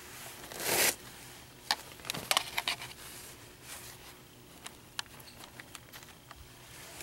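Kimwipe paper tissues rustling and crinkling as a probe is dried. There is one louder rustle about half a second in, then scattered short crinkles and light clicks.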